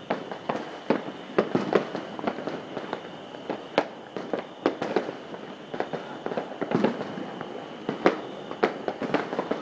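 Many fireworks and firecrackers going off at once, an irregular run of pops and bangs, several a second, with a few louder bangs standing out.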